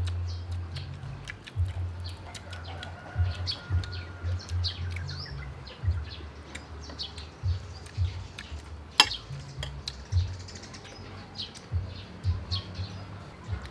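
Eating at the table: spoons clinking and scraping on plates while crispy fried swordfish is crunched and chewed, in many short sharp clicks. There is one loud click about nine seconds in. Birds chirp in the background.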